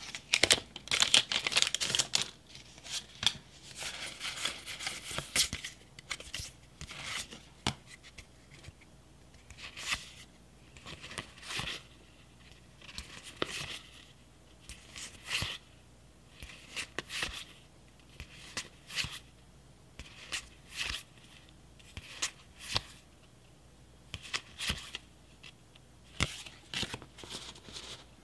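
Foil booster-pack wrapper crinkling and Pokémon trading cards being pulled out over the first few seconds, then cards slid one at a time off the top of the stack, a short papery swipe about every two seconds.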